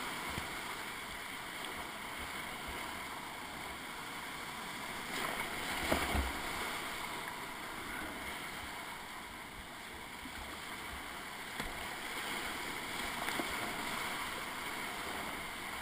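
Whitewater rapids rushing loudly around a kayak as it runs down the river, with the splash of the waves against the boat. A brief louder thump comes about six seconds in.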